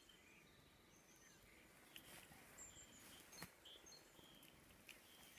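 Near silence, with faint bird chirps now and then and a few soft clicks.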